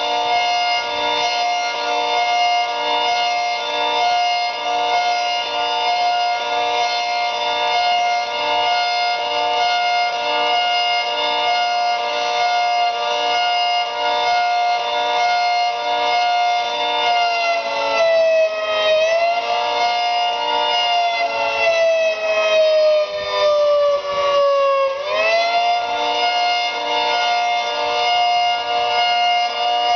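Federal Signal 3T22 rotating outdoor warning siren sounding a steady multi-tone chord that swells about once a second. About 17 s in its pitch sags and slides slowly down for several seconds, then climbs quickly back to full pitch. Its pitch is unusually high because of a blocked intake.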